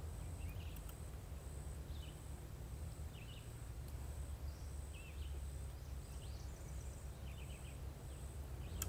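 Outdoor ambience: faint short bird chirps every second or so over a steady low rumble, with a faint high pulsing buzz.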